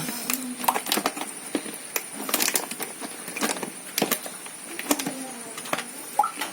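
Scattered clicks, knocks and rustles of hands handling a fish-transport bag and its rubber band, with a faint steady high whine underneath.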